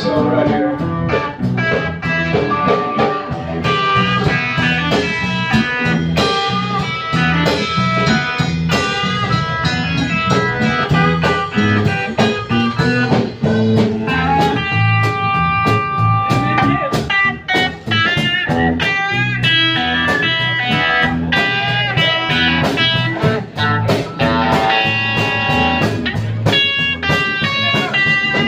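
Live blues band playing an instrumental stretch: an electric guitar plays lead lines with long held notes over bass guitar and a drum kit.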